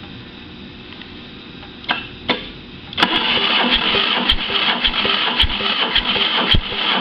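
Mercruiser 3.7 four-cylinder engine cranked over by its starter motor for a compression test, not firing: two clicks, then about four seconds of steady starter whirring with a heavier thump about twice a second as the tested cylinder comes up on compression.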